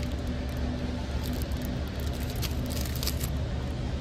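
Steady low background hum of a store with a faint steady tone, and a few brief rustles.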